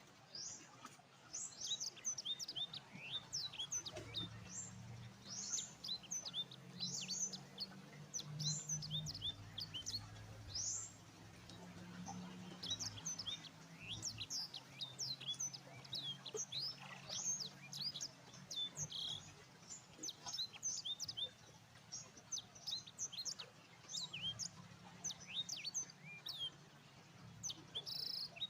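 A chorus of small birds chirping: many short, high chirps that sweep downward, overlapping in quick succession.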